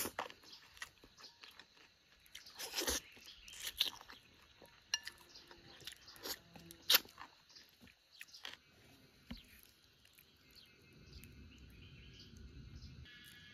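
A person biting and chewing pieces of bone-in cold spiced chicken, close to the microphone: irregular crunches and clicks. These thin out near the end into a faint low rumble.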